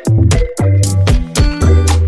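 Background music: a funk-style track with a heavy bass line and a steady drum beat.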